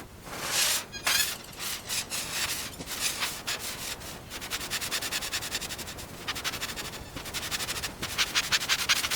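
Quick, repeated scraping strokes, several a second, like something being rubbed or scratched.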